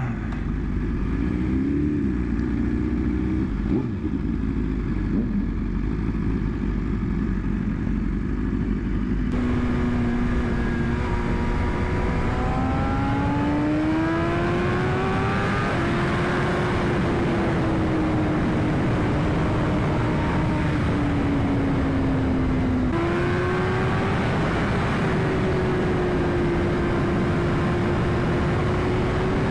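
BMW S1000RR inline-four motorcycle engine heard from the rider's helmet. It runs at low revs for about nine seconds. Then, with wind rush, the revs climb for several seconds and settle to a steady cruise, with a sudden jump in pitch near twenty-three seconds.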